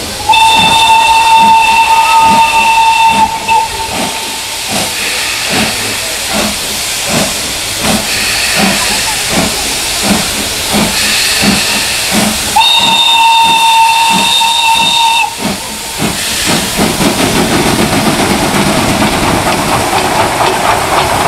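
Steam locomotive starting a train under heavy load: steady exhaust chuffs a little under two a second, and two long blasts on its steam whistle, one at the start lasting about three seconds and another about halfway through. In the last few seconds a loud hiss of steam from the cylinders takes over as the engine passes close.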